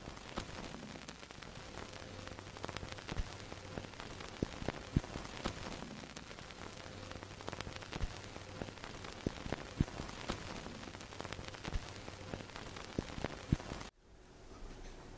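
Old-film crackle: a steady hiss with irregular pops and clicks and a faint hum. It cuts off abruptly near the end, leaving a quieter hiss.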